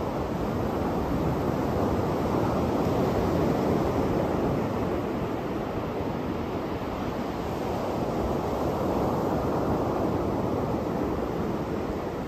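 Ocean surf breaking and washing up a sandy beach: a steady rushing wash that swells louder about two seconds in and again about eight seconds in as waves break.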